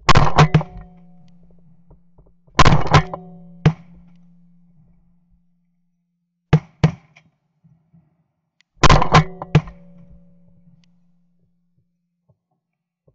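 Shotgun blasts in four quick strings of two to four shots, each string trailing a short low ringing. They are recorded close up from a camera mounted on the firing gun, as waterfowl pass over.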